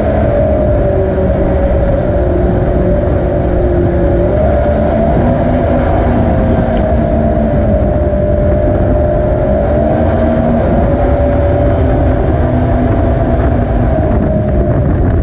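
Jet boat running steadily through the water, a loud, constant engine drone with a slightly wavering whine over it.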